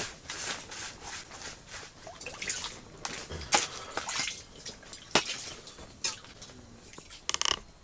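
Metal ladle stirring and scraping groundbait in a plastic bucket, with sharp clinks as it knocks against the bucket. There is a quick run of clinks near the end.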